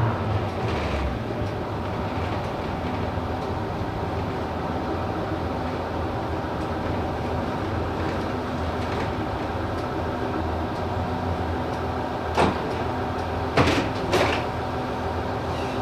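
City bus engine running steadily. Three short, sharp sounds cut through it about twelve, thirteen and a half and fourteen seconds in.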